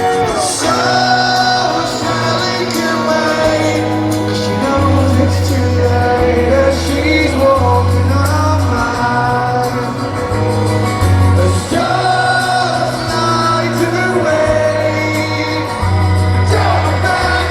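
Live rock band playing a song with singing over a bass line that steps between held notes.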